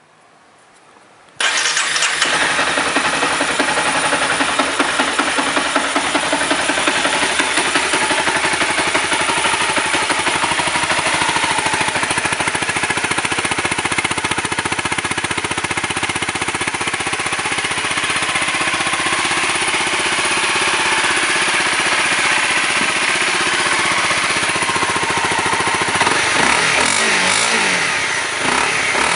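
Honda CBR250R single-cylinder motorcycle engine, on its stock exhaust, starting about a second in and then idling steadily. It is revved a few times near the end.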